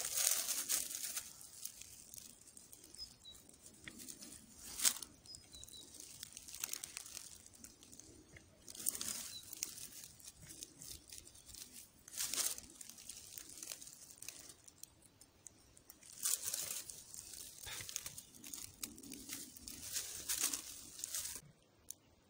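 Dry fallen leaves and grass rustling and crackling in short, irregular bursts, with a few sharp snaps, as hands and a knife work at ground level to cut and pull herb stems free.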